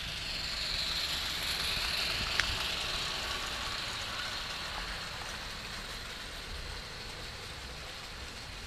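Kit-built MSS live-steam model locomotive running past close by: a steady steam hiss that swells to its loudest about two seconds in and then fades as it pulls away. One sharp click near the loudest point.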